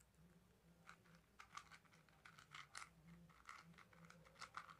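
Faint, irregular clicking of a stickerless 4x4 speed cube's plastic layers being turned rapidly by hand, starting about a second in.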